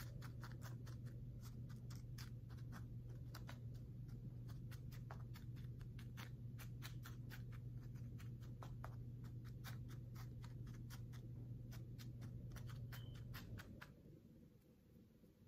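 Many small, quick clicks and ticks, several a second, of seeds and fingers working a plastic seed-starting tray, over a steady low hum. Both stop near the end.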